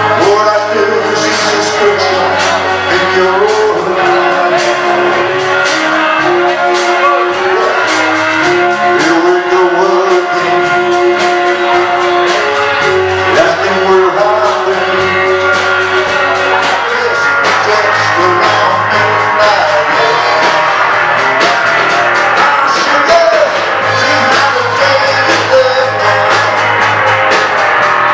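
Live rock-and-roll band playing a song: electric guitars and drums with a steady beat, and a singer's voice over them.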